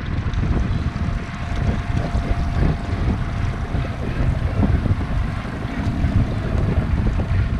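Wind buffeting the microphone in uneven gusts, over choppy sea water lapping against a small inflatable boat.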